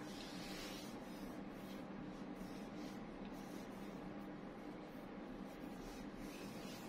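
Faint steady hiss with a low hum and no speech: room tone.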